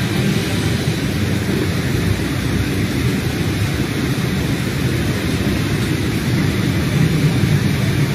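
Heavy rain falling steadily, with a continuous low rumble beneath it.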